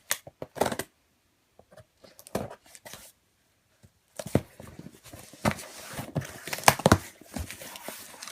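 A package being opened by hand: short bouts of tearing and crinkling packing material with sharp clicks, a brief pause near the middle, then more continuous rustling and crinkling.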